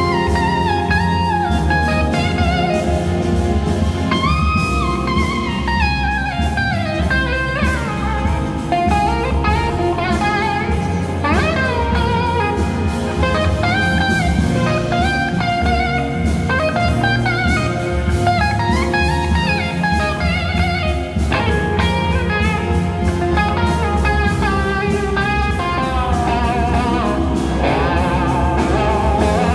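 Instrumental break from a live band with a string section, led by an electric slide guitar solo whose notes glide up and down between held pitches.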